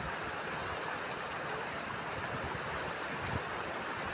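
Floodwater flowing across a submerged road: a steady rushing noise.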